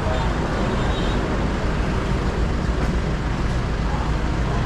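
Yamaha Ténéré 700 motorcycle on the move: a steady rush of wind and road noise with the engine running underneath.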